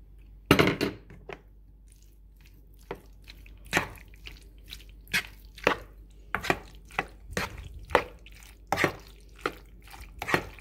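A metal spoon clinking and scraping against a plastic mixing bowl as soft cooked pasta is stirred, in separate sharp clicks about one or two a second. Just after the start comes a short burst of louder knocks.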